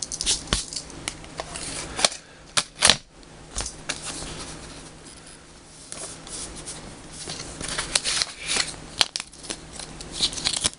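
Small white cardboard puzzle-cube box being opened by hand: card flaps snapping and paper inserts rustling, with a few sharp clicks about two to three seconds in and a busier patch of rustling near the end.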